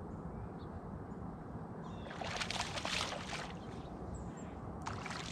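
Water splashing and sloshing at the boat, a burst of splashing lasting about a second, starting about two seconds in, with a shorter splash near the end, over a steady low rumble of moving water.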